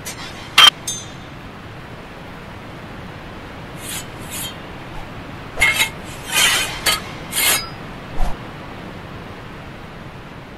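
Sword-fight sound effects: a sharp, loud clash of steel blades about half a second in, then a quick run of clashes and scrapes between about four and eight seconds, over a steady background hiss.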